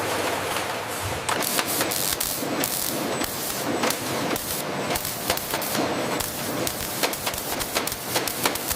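Bottling-plant machinery clattering: a steady hiss with rapid, irregular clicks and knocks.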